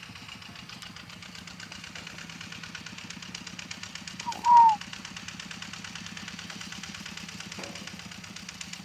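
A small engine idling steadily with an even, rapid beat. About halfway through, one short, loud bird call slides down in pitch.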